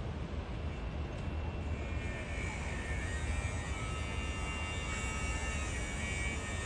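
A steady low rumble like a distant engine drone, with a hissing upper layer that grows a little brighter about two seconds in.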